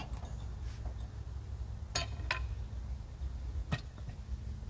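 Sawmill engine idling with a steady low rumble, and three short sharp metallic clicks about two, two and a half and almost four seconds in.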